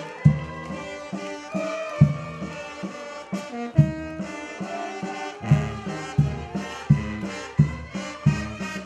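Brass band playing a march, with strong low notes marking a steady beat that comes about every 0.7 seconds in the second half.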